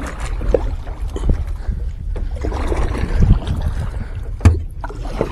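Kayak being paddled and turned around: paddle strokes and water sloshing, with a few sharp knocks, the loudest near the end.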